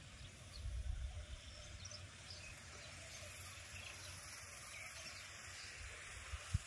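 Quiet outdoor ambience with faint bird chirps, and a low rumble on the microphone for about a second, half a second in.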